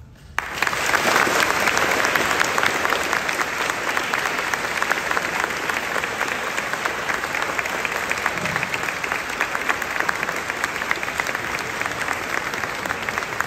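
Audience applauding, breaking out suddenly just after the start and then holding steady, with one person clapping close by.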